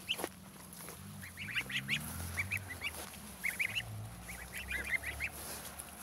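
A small group of goslings peeping: quick runs of short, high calls in clusters.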